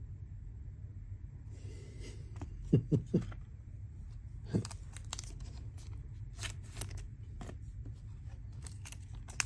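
Trading cards and their packaging being handled: scattered light clicks and crinkles over a low steady hum, with a few soft knocks about three seconds in.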